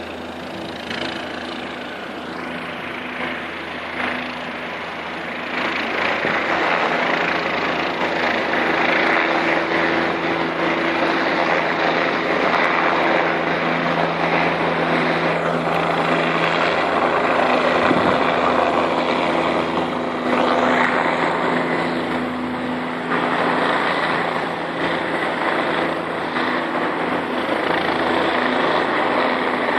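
Helicopter running close by, its rotor and engine giving a steady hum with dense noise that grows louder about six seconds in.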